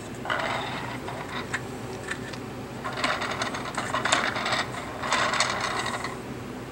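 A small motor whirring in three short spurts, the middle one the longest, with faint clicks through them, over a steady low hum.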